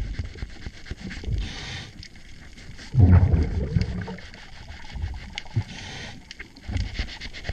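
A scuba diver breathing underwater through a regulator: an inhale hiss about a second and a half in, a loud burst of exhaled bubbles about three seconds in, then another inhale hiss about six seconds in. A few sharp clicks in between.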